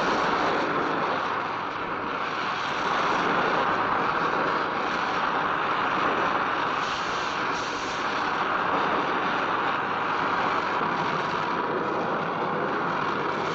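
Steady vehicle noise, a continuous rushing sound with no distinct engine note, starting abruptly right after music cuts off.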